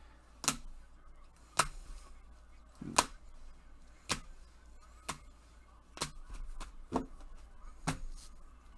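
Rigid plastic trading-card holders clicking against each other as cards are flipped one at a time from a stack, a sharp click about once a second.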